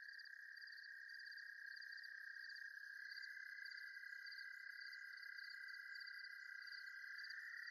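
Insects chirping faintly: a steady high trill under a sharper pulsing chirp that repeats about twice a second.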